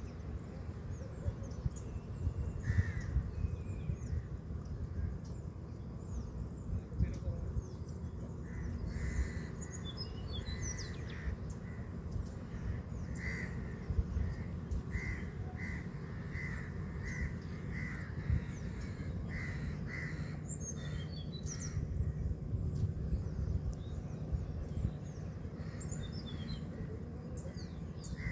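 Crows cawing repeatedly, with a long evenly spaced run of caws in the middle, while smaller birds chirp high and thin. A steady low rumble runs underneath.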